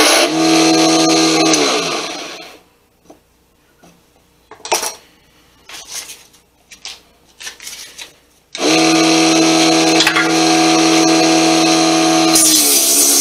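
Sanjiang mini wood lathe's small DC motor running with a steady hum, then switched off and winding down with falling pitch about 2 s in. There are a few light knocks while it is stopped, then it starts again abruptly about 8.5 s in and runs steadily. Guitar music comes in near the end.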